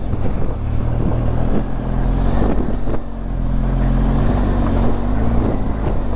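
Vehicle engine running steadily under way, its pitch wavering a little about two-thirds of the way through.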